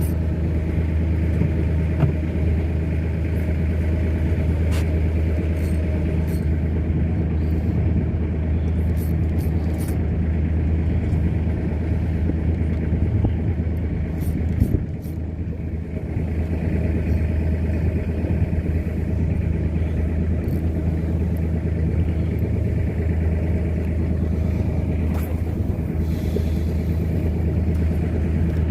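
Boat engine running steadily with a low, even hum, dipping briefly about halfway through.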